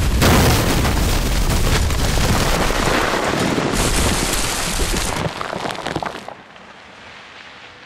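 Battle explosion sound effects: a heavy blast with dirt and debris pouring down in a dense hiss and rumble, dying away about six seconds in.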